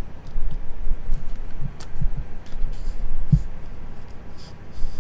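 Hands handling rigid plastic card top loaders and trading cards close to the microphone: scattered light clicks, taps and short plastic scrapes, with one dull thump a little past halfway.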